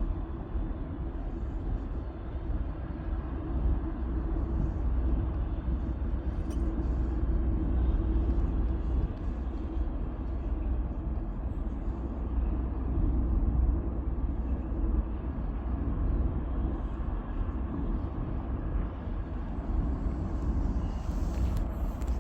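Steady low rumble with an even noisy hiss over it, unchanging throughout.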